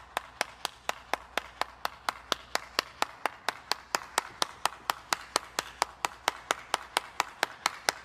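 One person clapping their hands, steady and even, about five claps a second.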